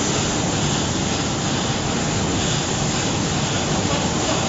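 Steady mechanical noise of a valve bag packing line, with its motor-driven belt conveyors carrying filled bags.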